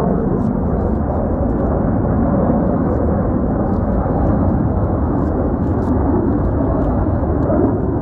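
Jet engine noise from the Black Eagles' T-50B jets, heard as a steady, even roar with no rise or fall.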